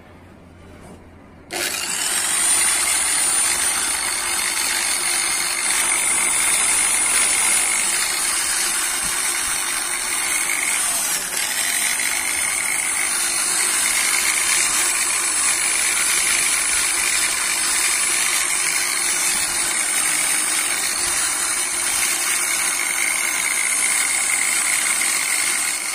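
Orion EP-6100 450 W electric rotary polisher with a wool pad switched on about a second and a half in and run free, its brushed motor making a steady high whine. The pitch dips briefly about eleven seconds in, then steadies again.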